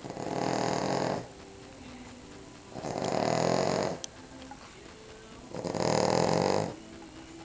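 A Cavalier King Charles spaniel snoring: three loud snores, each a little over a second long and a little under three seconds apart, with quieter breathing between.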